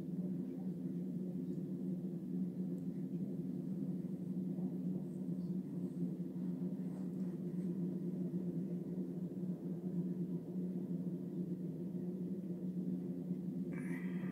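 Adult cat purring steadily, close up against the fur. Near the end a newborn kitten gives one short, high mew.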